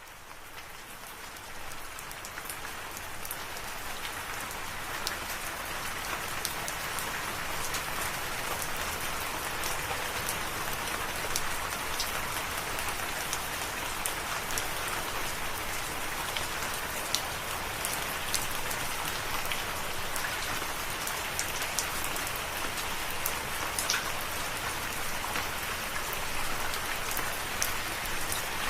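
Steady rain falling, a dense even patter with individual drops ticking sharply through it. It fades in over the first couple of seconds, then holds level.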